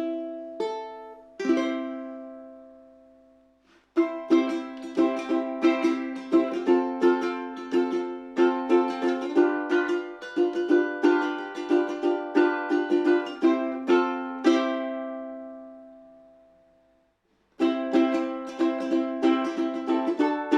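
Tenor ukulele with a re-entrant high G, a Flight Voyager all-solid spruce and acacia model, played as a sound demo. A few single notes and a chord are left to ring, then chords are strummed in a steady rhythm; near the end one chord rings out for a couple of seconds before the strumming starts again.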